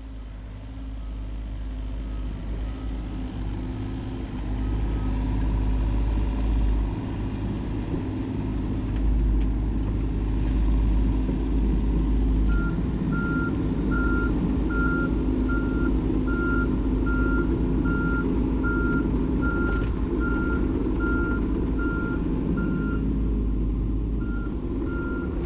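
Mini excavator's diesel engine running, growing louder about five seconds in, with its travel alarm beeping steadily, about one and a half beeps a second, from about halfway.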